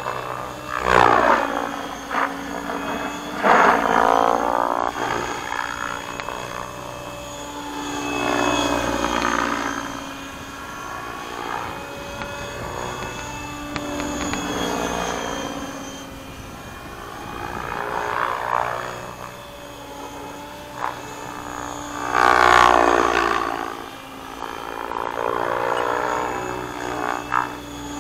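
Align T-Rex 700X electric RC helicopter in flight at a low 1,700 rpm headspeed: a steady rotor hum over the whine of its 850MX brushless motor. It swells and fades every few seconds as the helicopter passes back and forth, loudest about a second in, near a third of the way through, and about three quarters through.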